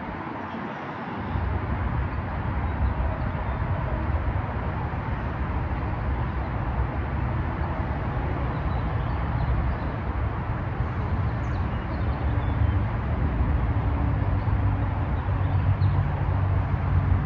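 Wind buffeting the microphone: a steady rushing, rumbling noise with no distinct events.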